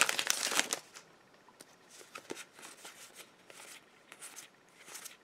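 Foil booster-pack wrapper crinkling for about a second as the trading cards are pulled out of it, then faint soft slides and ticks of the cards being handled and flicked through one by one.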